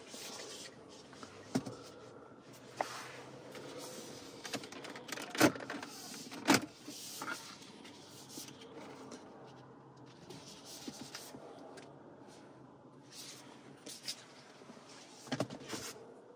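Plastic retaining clips of a Lexus CT's leather-covered center-console side trim panel snapping loose as the panel is pulled off. The panel rubs and rustles throughout, with a handful of sharp snaps; the two loudest come about five and a half and six and a half seconds in.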